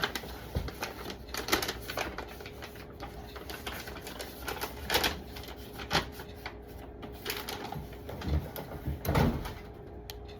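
Heavy packing paper being handled and unfolded, crinkling and rustling in irregular strokes, with a few louder crackles and taps.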